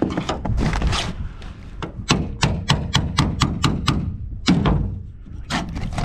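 A hammer tapping a flathead screwdriver to drive the rivets out of an aluminium boat's rail strip: a quick run of sharp taps, about five a second, starting about two seconds in, with a few more near the end.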